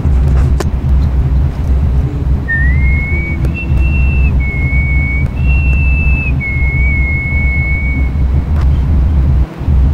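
Music: a whistled melody of a few long held notes stepping up and down in pitch, over a heavy, steady bass.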